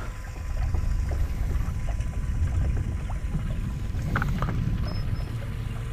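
Wind buffeting the microphone and small waves lapping against the side of a fishing boat, with a brief knock about four seconds in.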